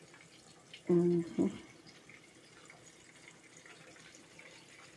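Breaded chicken pieces frying in hot oil in a pot: a quiet, steady sizzle with small crackles. A short hummed voice sound breaks in about a second in and is the loudest thing.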